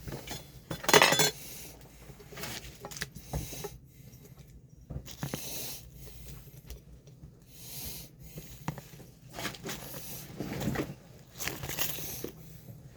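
Kitchen utensils and dishes clinking, knocking and scraping in irregular bursts while food is handled at the counter. The loudest clatter comes about a second in.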